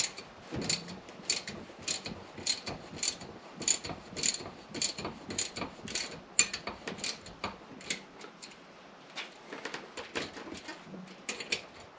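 Ratchet handle clicking in short back-and-forth strokes, about two clicks a second, as it turns a threaded fitting clamped in a bench vise; the clicks thin out near the end.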